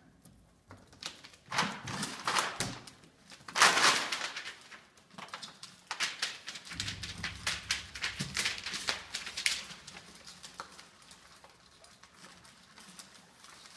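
Six-week-old Labradoodle puppies scrambling in through a pet-door flap and onto newspaper: a quick run of paw clicks, scuffles and paper rustling that thins out near the end.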